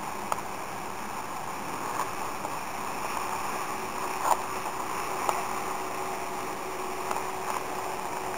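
Steady drone of a distant motorboat on the river below, with a few small clicks.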